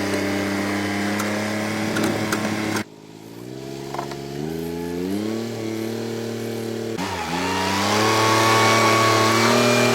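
Motor vehicle engine running and revving in several cut-together clips, its pitch climbing in steps after the first cut and rising again near the end.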